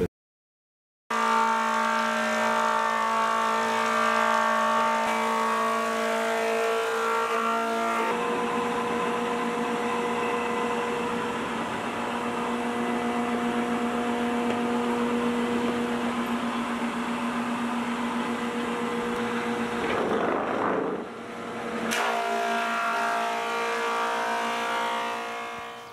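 Thickness planer running and cutting planks, a steady pitched machine hum over the noise of the cut. It starts after about a second of silence, shifts in pitch about eight seconds in, and dips briefly around twenty seconds before settling again.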